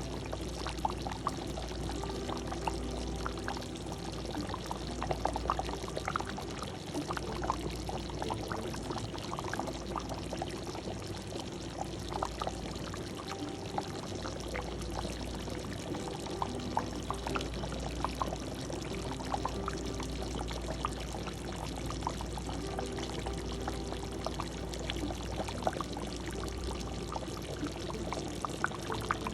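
A pot of humba, Filipino braised pork, simmering: the thick sauce bubbles and pops in many small irregular blips, over a steady low hum.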